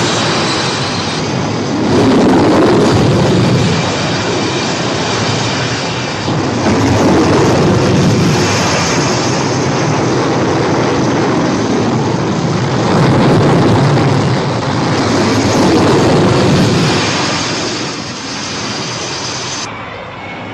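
Carrier jet aircraft engines running at full power during catapult launches off a flight deck: a heavy, continuous roar that swells and eases several times as successive aircraft go off the bow.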